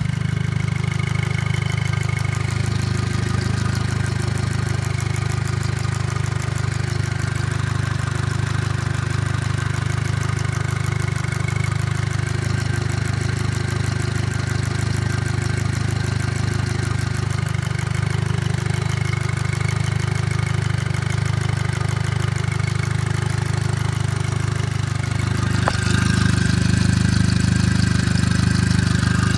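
Volkswagen 2.0T FSI (BPY) turbocharged four-cylinder engine idling warm, with a rapid light ticking over the steady engine hum. The tick appears only at warm idle and goes away with any throttle. The engine gets a little louder near the end.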